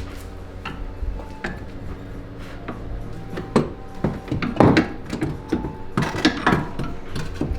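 A series of sharp metallic knocks and clanks from tools and suspension parts being worked into place, most of them between about three and a half and six and a half seconds in.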